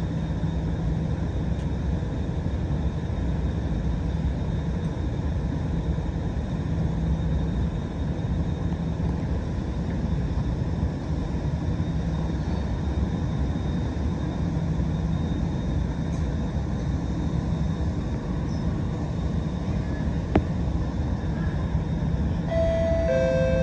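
Steady drone inside an SMRT R151 train carriage, with a constant low hum, as it stands at the platform with its doors open. About a second before the end the door-closing chime begins, one tone and then a lower one, signalling that the doors are about to shut.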